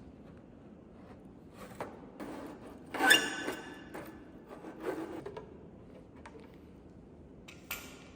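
Work handling noises: scattered knocks and scrapes, with one loud, brief squealing scrape about three seconds in.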